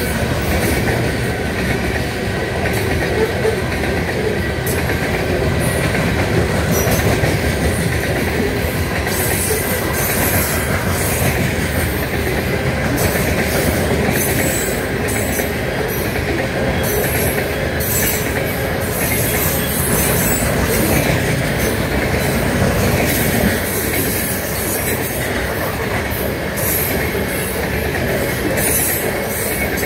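A freight train of open-top coal hopper cars rolling past: a steady rumble of steel wheels on rail, with irregular clicking from the wheels and a thin, steady wheel squeal.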